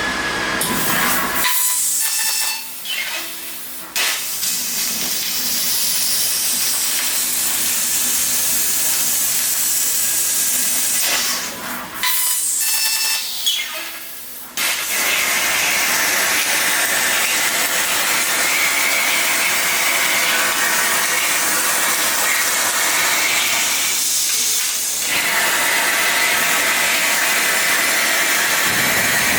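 Steady loud hiss of a 20 kW fiber laser cutter cutting thick steel plate. The hiss drops away briefly three times: about a second and a half in, around twelve seconds, and near twenty-four seconds.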